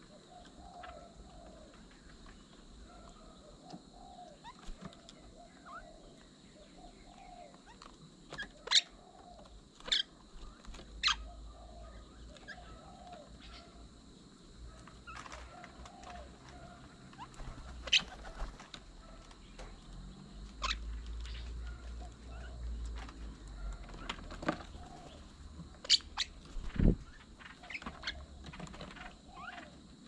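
Mynas feeding at a bird table: a scattering of sharp taps and clicks of beaks and feet on the plates and concrete, over soft repeated bird calls. A low rumble of wind on the microphone comes and goes through the middle.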